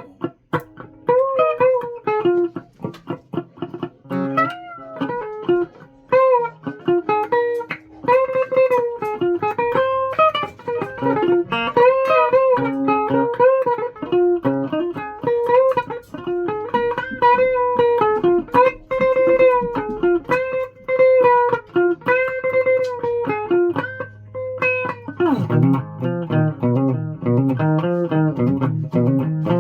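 Guitar played as a melody of single plucked notes with frequent bends up and down in pitch; about 25 seconds in it switches to a lower, denser part.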